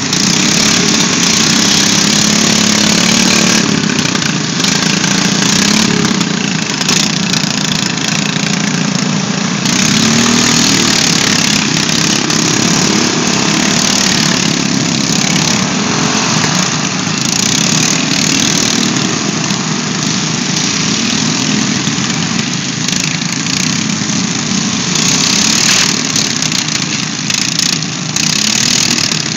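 Riding lawn mower engines running and revving.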